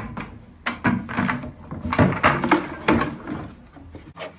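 Plastic 5-gallon bucket and water jug knocking and clattering against a wooden workbench as the bucket is turned over the jug and the pair is flipped upright: a quick series of knocks, loudest around the middle.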